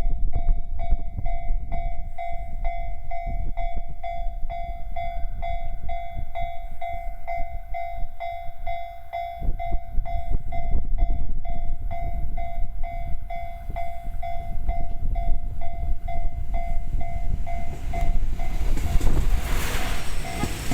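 JR standard electronic level-crossing alarm ringing, one pitched tone struck a little more than twice a second. Under it is the low rumble of a GV-E400 series diesel-electric railcar running through, with a rush of noise near the end.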